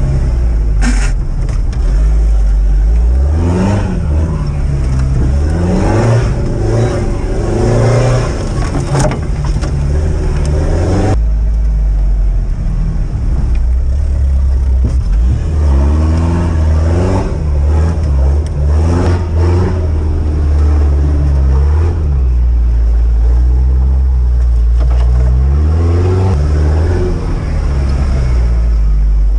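Off-road Toyota 4x4's engine heard from inside the cabin, running under load on a trail and revving up and down several times as the driver works the throttle.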